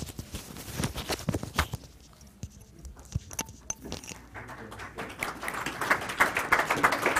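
Scattered footsteps and light knocks, then audience applause that starts about four seconds in and builds.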